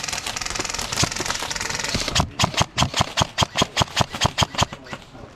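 A fast, even mechanical rattle, then about two seconds in a quick run of around fifteen sharp clicks, about six a second, each with a low thump.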